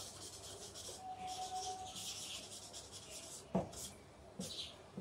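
Marker pen writing on a sheet of paper backed by a whiteboard: quiet scratchy strokes in short runs, with a single knock a little past halfway.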